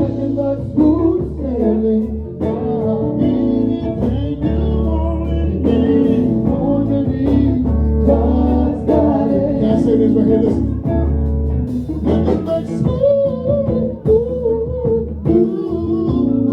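Gospel group singing with electric guitar and bass backing.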